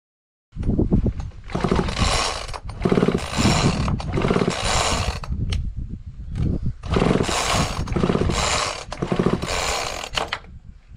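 Homelite Super 2 chainsaw's recoil starter pulled repeatedly: two runs of quick pulls with a pause near the middle, the engine whirring over with each yank. The spark plug is out and grounded to the frame, so the engine cranks without firing while the ignition is tested for spark.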